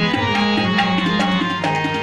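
Harmoniums holding a sustained melody while tabla drums play a quick, steady stroke pattern: an instrumental passage of Sikh shabad kirtan.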